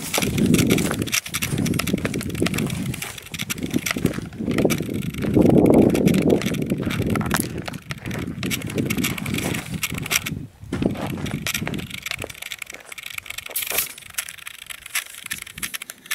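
Wind buffeting the microphone in gusts, a rumbling that swells and fades over a steady hiss, strongest about five to seven seconds in.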